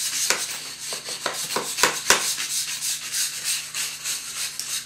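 Wire brush scrubbing a poured concrete wall along a crack in quick scraping strokes, about three a second, cleaning the surface before the crack is sealed. The scrubbing cuts off suddenly at the end.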